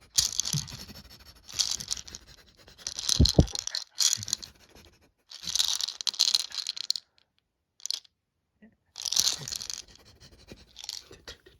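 Someone sniffing the air in a series of loud, hissy sniffs, about five of them with pauses between, and a short low thud about three seconds in.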